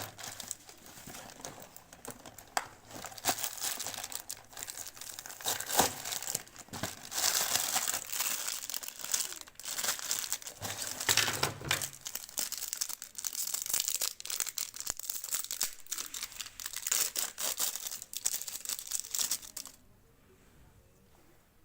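Wrappers on chocolate bars crinkling and tearing as they are unwrapped, in irregular crackles that stop near the end.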